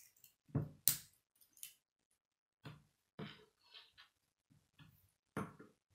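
K'nex plastic rods and connectors clicking and snapping together by hand, with knocks as pieces are set down on a wooden table. The clicks come irregularly, the loudest about a second in and again near the end.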